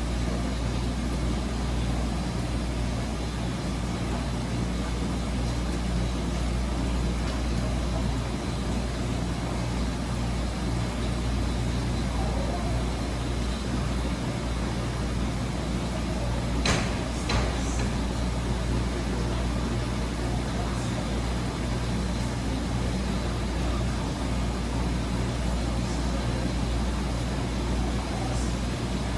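Wascomat Senior W125 35-pound commercial washing machine running mid-cycle: a steady motor hum. Two short sharp clicks come about 17 seconds in.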